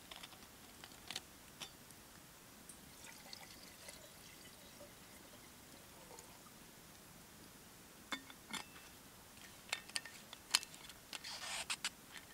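A drink poured from a thermos flask into a cup, quietly, among scattered sharp clicks. A louder rush of noise lasting about a second comes near the end.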